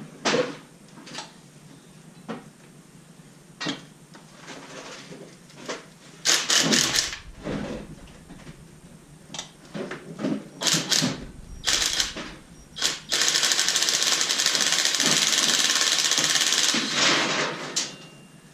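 Impact wrench hammering in short bursts on engine bolts, then running steadily for about four seconds near the end, amid the clinks and knocks of hand tools and metal parts.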